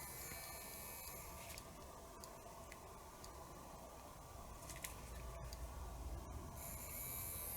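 Small cassette-deck azimuth motor running faintly on a bench battery, with a few faint clicks. It turns steadily without stalling now that its capacitors are fitted.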